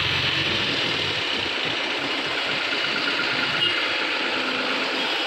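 Diesel engine of a loaded multi-axle lorry running steadily as the lorry moves slowly past.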